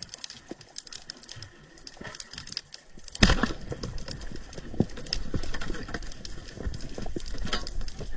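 Underwater crackle of sharp clicks, then a loud thump a little over three seconds in as the speargun fires, followed by a louder low rumble and more clicking as the speared fish struggles.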